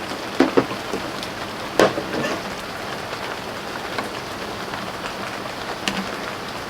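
Steady rain falling, an even hiss of drops on surfaces. A few short, sharp clicks stand out over it, about half a second in, near two seconds in, and around six seconds in.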